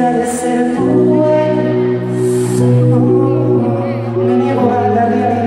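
Live band music: held chords that change every second or so, with a few brief high splashes over them.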